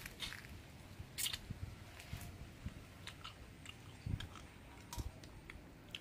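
Close chewing and biting of grilled satay chicken feet: irregular crisp crunches and clicks, a few louder ones about one, four and five seconds in.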